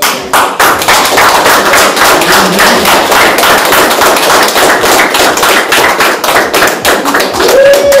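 Audience applauding steadily for several seconds, with one voice shouting a cheer near the end.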